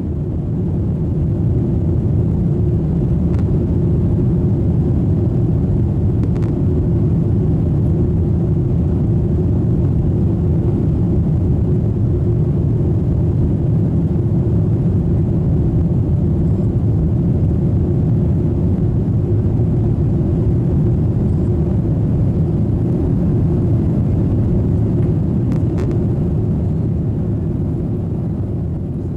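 Cabin noise inside a Ryanair Boeing 737 jet airliner in flight: a steady, loud low rumble of the engines and airflow, easing slightly at the end.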